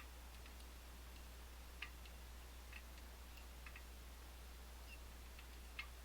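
Faint, scattered metallic clicks of a lock pick pushing and setting the pins of a French pump lock under light tension. The clicks are loudest about two seconds in and near the end, over a low steady hum.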